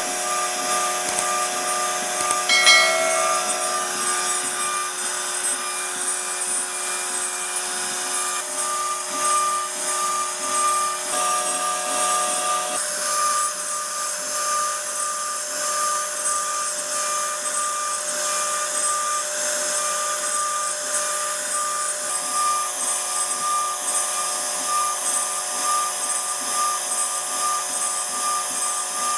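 CNC router spindle running and cutting into wood as it carves a 2.5D design: a steady mechanical whine with tones that shift several times as the cut moves, and a brief louder sound about three seconds in.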